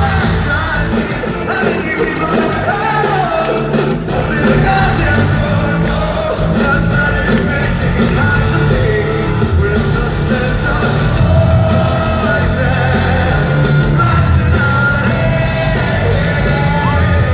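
Live rock band playing in an arena, with a lead singer, drums and strings, heard from the audience seats with the hall's echo. Yells ride over the music.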